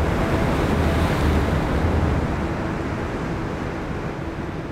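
Sea surf breaking on a beach, with wind: a steady rush of waves that slowly fades away over the second half.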